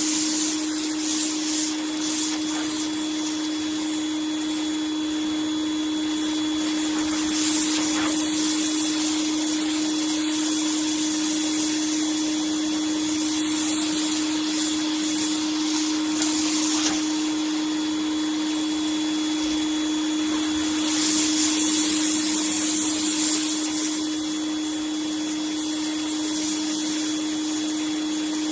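Vlaseo electric pressure washer running, its motor and pump giving a constant hum, with the hiss of a 0-degree water jet on concrete that rises and falls as it sweeps.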